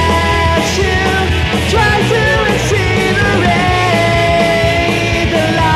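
Rock song with a man singing loudly over a band backing track.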